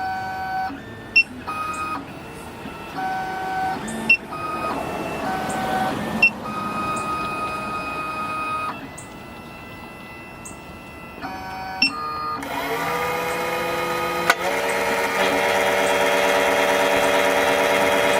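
SEC-E9 electronic key-cutting machine moving into position before cutting: its motors whine in steady tones that change pitch every second or two, with sharp clicks between the moves. About twelve seconds in, the carbide cutter's spindle motor spins up with a rising whine and then runs steadily, the loudest part.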